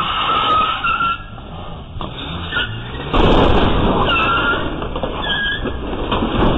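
SUV engine running hard with tyres squealing on a concrete driveway, getting louder about three seconds in.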